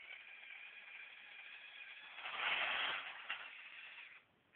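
LEGO Power Functions electric motor whining through plastic gears as it tilts the halftrack's top section up. It starts abruptly, gets louder and rougher for about a second midway, and stops just before the end.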